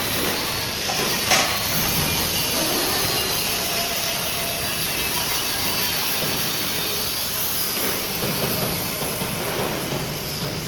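Steady factory workshop machinery noise with a hiss, and one sharp metallic clank about a second in.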